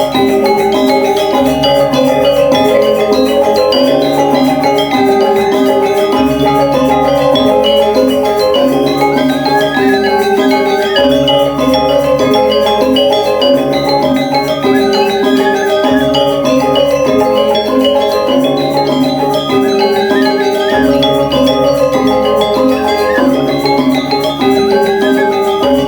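Balinese gamelan playing the accompaniment for the Rejang dance: bronze metallophones ring out a repeating melodic figure over a low recurring note, about every two seconds, in a steady cycle.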